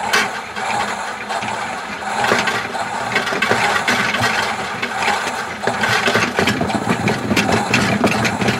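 Toy washing machine running its wash cycle: a steady whirring noise with many small clicks and knocks, starting abruptly and running for about nine and a half seconds.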